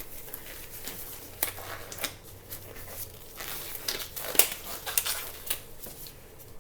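Gloves being pulled onto the hands: irregular rustling and crinkling with scattered light snaps and clicks.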